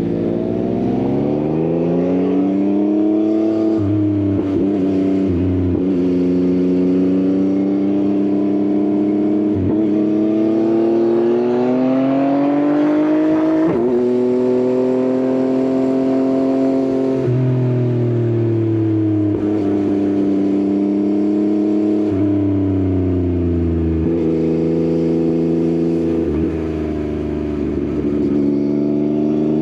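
Yamaha XSR900's inline three-cylinder engine through an Akrapovič exhaust, under way on a ride. The revs climb and fall repeatedly, with short breaks between the climbs where gears change.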